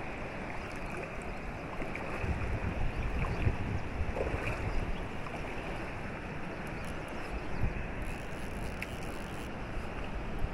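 Steady rush of flowing river water, with wind buffeting the microphone in uneven low rumbles.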